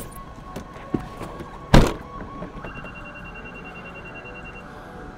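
A car door shut with a single heavy thump about two seconds in, after a softer knock about a second in.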